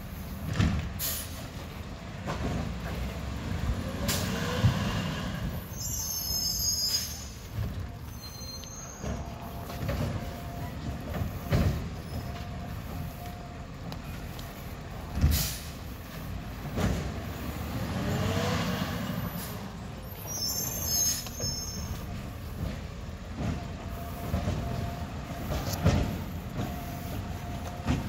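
Automated side-loader recycling truck at work: the diesel engine runs and twice revs up with a rising pitch as the hydraulic arm lifts and dumps a cart. Between the revs come several sharp bangs of carts and recyclables hitting the hopper, and short hisses of air.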